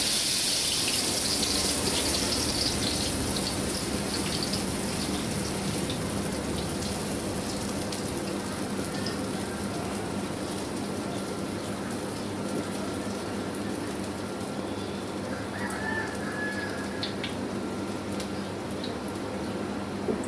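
Roasting sand rushing through the mesh sieve lid of a large iron kadai as the popcorn is tipped against it. The hiss starts sharply and is loudest in the first few seconds, then eases into a steadier rustle with scattered sharp clicks.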